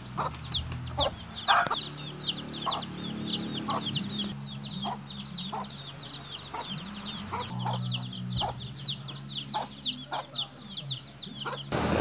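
A brood of young chicks peeping rapidly and continuously, many short falling cheeps overlapping, with short clucks from an adult chicken among them.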